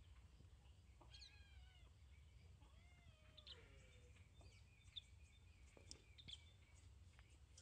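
Cat meowing faintly, twice: a short meow about a second in, then a longer one a couple of seconds later that falls in pitch.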